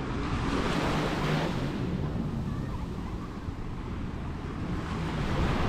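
Small waves washing up on a sandy beach, one swelling hiss of surf in the first couple of seconds, with wind rumbling on the microphone.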